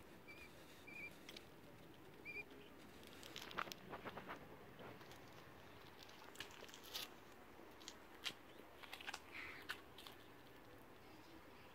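Faint, short high peeps from a week-old quail chick, four in the first few seconds, then scattered light clicks and taps.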